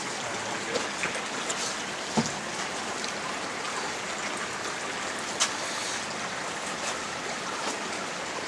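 Steady rush of flowing creek water, with a few sharp clicks and knocks over it, the clearest about two seconds and five and a half seconds in.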